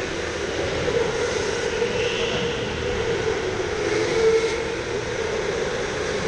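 Electric go-karts driving around an indoor track: a steady motor whine over tyre noise, loudest about four seconds in as two karts pass close.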